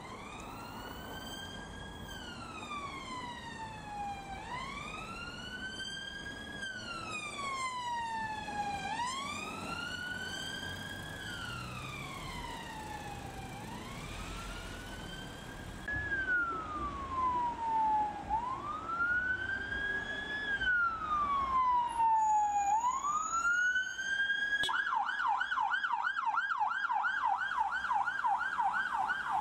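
Police vehicle sirens on wail: a slow rising and falling tone that repeats about every four to five seconds. Around halfway it becomes louder as a second vehicle's siren takes over, and near the end it switches to a fast yelp, about four warbles a second.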